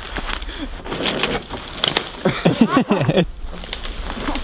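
A man's wordless voice calling out, a hooting whoop about two seconds in, among the rustle and snapping of spruce branches as someone climbs through the tree.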